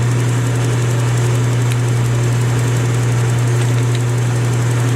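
Rockwell 11-inch variable speed geared-head lathe running at a set speed: a steady low hum with a few faint clicks.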